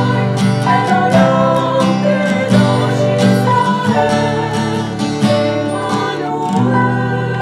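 A group of women singing a hymn in harmony, with instrumental accompaniment.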